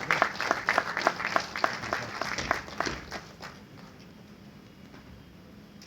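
Audience applauding with rapid, close-spaced claps that die away about three and a half seconds in, leaving a faint steady hum.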